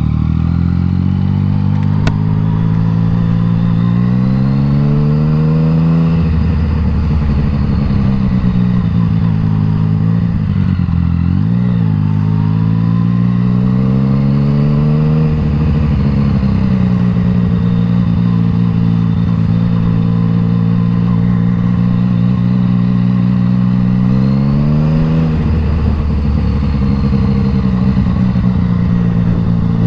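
Yamaha MT-09's three-cylinder engine through an Akrapovič exhaust, heard while riding. The engine note climbs under acceleration several times, dips sharply once about eleven seconds in, and holds steady at cruising revs between the climbs.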